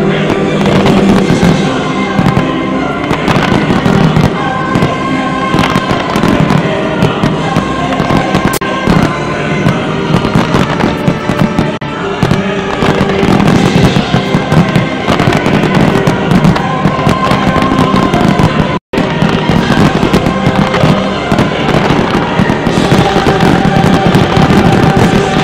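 A dense fireworks barrage: rapid shell bursts and crackling, one after another, over loud orchestral-style music from a pyromusical soundtrack. The sound cuts out for a split second about nineteen seconds in.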